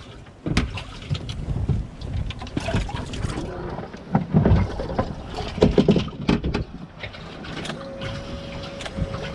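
Knocks and thumps of a bass boat's hinged deck compartment lid being shut and handled, with the two heaviest thumps about four and a half and six seconds in. A faint steady hum starts near the end.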